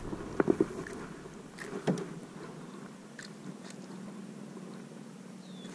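A few soft clicks and knocks as fishing tackle is handled in a canoe, with fainter ticks after them.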